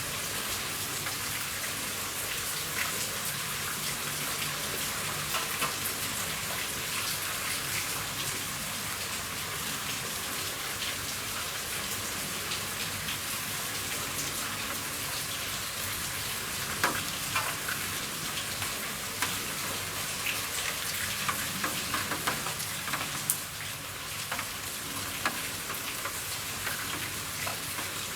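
Rain falling steadily on a roof: a dense, even hiss with sharp taps of single drops, louder and more frequent in the second half.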